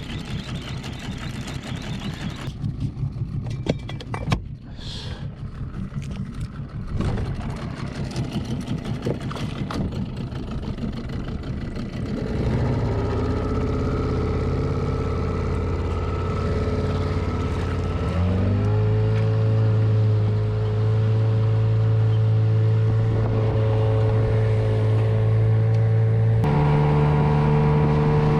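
Small boat outboard motor starting about twelve seconds in, after a stretch of clattering, then running steadily. Its pitch steps up twice, about eighteen seconds in and again near the end, as the throttle is opened to get under way.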